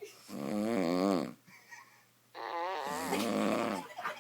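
A man snoring heavily, two long snores with a wavering pitch, the second beginning about two seconds after the first ends.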